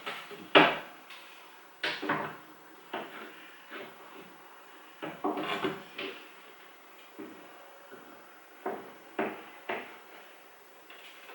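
Kitchen cupboard doors and drawers being opened and shut, with a run of separate knocks and clatters, about a dozen in all, some in quick pairs.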